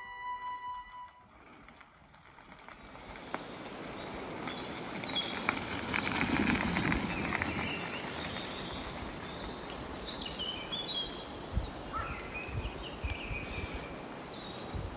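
Bicycle towing a dog trailer rolling past on a gravel forest track: the crunch of the tyres swells to a peak about six to seven seconds in and then fades. Birds chirp in the trees.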